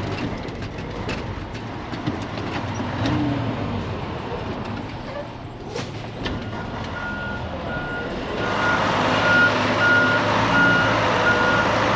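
Diesel tractor-trailer running, with a short burst of air about six seconds in; a reversing alarm then starts beeping steadily and the engine rises in level as the truck backs.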